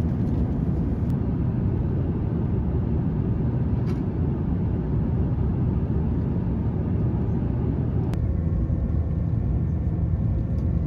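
Steady low roar of jet airliner cabin noise in flight, with a few faint clicks.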